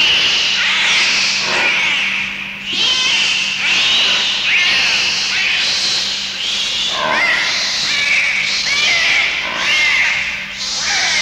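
Dolphin whistles and squeaks: a string of short, high chirps that glide up and down in pitch, coming in clusters every second or two, over a steady hiss.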